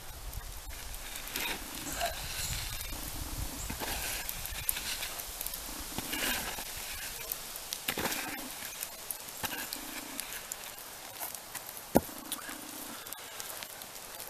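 Dry dirt and ash being scraped and brushed by hand off a pit where a fish wrapped in birch bark has cooked underground, with many small crackles and snaps and one sharp click about twelve seconds in.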